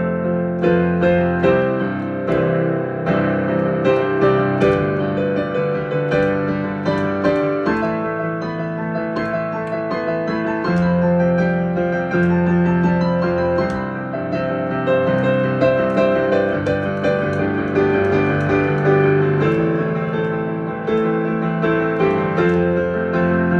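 Solo piano playing slowly, with low chords held for a few seconds at a time under a melody of struck notes.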